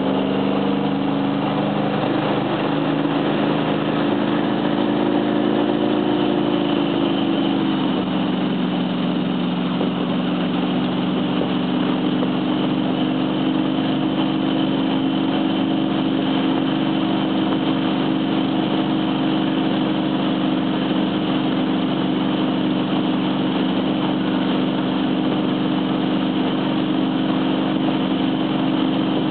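Motorboat engine running steadily while towing, its pitch dropping slightly about seven or eight seconds in and then holding, over the rushing hiss of the boat's wake.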